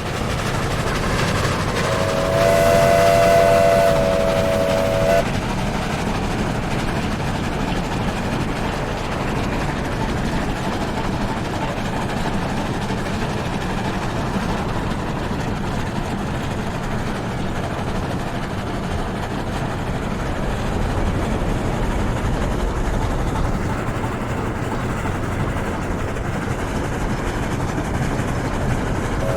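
Steam locomotive blowing its whistle, a held chord of several tones, for about three seconds near the start, then running on with a steady rumble and clatter.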